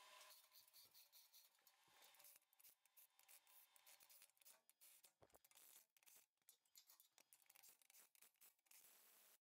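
Near silence, with faint scratching rubs and small clicks of a hand working at a bolted steel hub in the bottom of a mixer tub.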